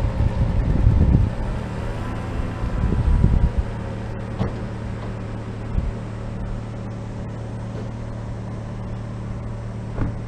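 A steady low mechanical hum, like a vehicle engine running, with irregular low rumbling in the first few seconds.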